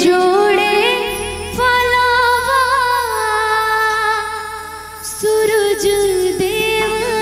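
A woman singing a Bhojpuri Chhath devotional song through a stage PA, sliding up into long held, wavering notes with few clear words and a short break about five seconds in. A steady low tone sounds underneath.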